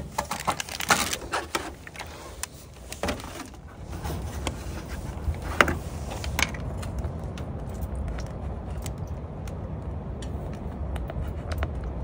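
Metal clinks and knocks as a metal Japanese hot water bottle (yutanpo) is handled. From about four seconds in, water pours steadily into it.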